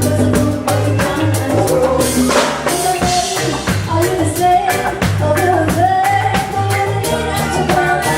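Band music with a lead singer over drums and bass, on a steady beat.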